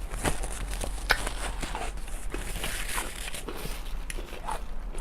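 Someone chewing a crunchy pickle close to the microphone: a run of irregular crisp crunches and clicks.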